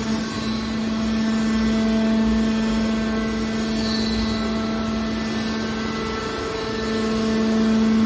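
Hydraulic car baler running: a steady, even hum from its hydraulic pump and motor, with a low rumble underneath.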